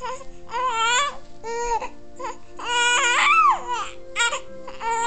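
Newborn baby crying in a string of about five wails, the longest and loudest about three seconds in, trailing off with a falling pitch.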